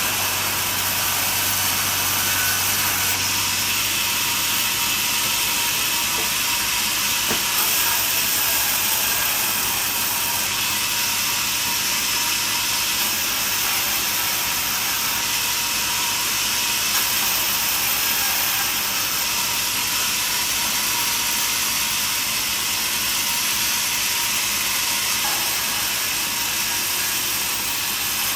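Portable band sawmill running, with a steady high hiss of the band blade cutting through wood. A low hum underneath drops away about three seconds in.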